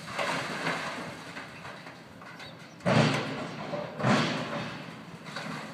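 Two heavy thuds about a second apart, over steady outdoor background noise.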